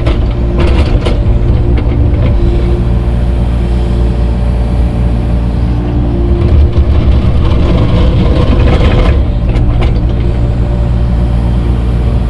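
Engine of a grading machine running steadily while dirt is being spread, with a few short clatters near the start and again past the middle.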